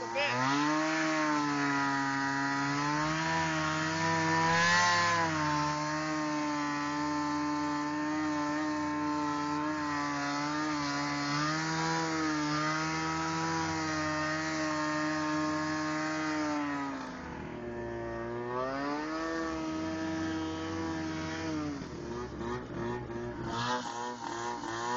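Snowmobile engine running under way, its pitch rising and falling a little with the throttle. It eases off about two-thirds of the way through, picks up again, then drops to a lower, uneven note near the end as the sled slows.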